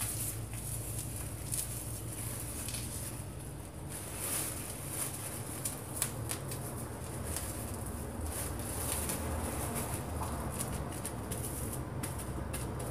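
Thin plastic bag rustling and crinkling in irregular bursts as it is twisted around a ball of polyester stuffing.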